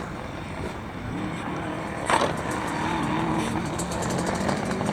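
A competition vehicle's engine running and revving up, its pitch rising in the second half. There is a single sharp crack about two seconds in.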